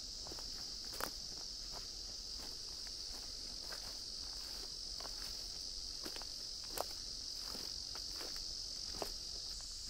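A steady high-pitched chorus of insects trilling without a break, with a few sharp ticks, about three, scattered through it.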